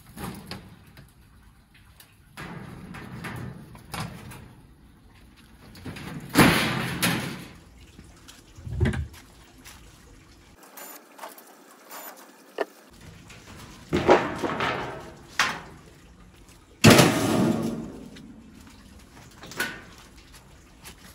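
Thin sheet-metal oven casing panels being pulled off and handled: several sudden clattering bangs and scrapes of metal, spread out with quieter stretches between them.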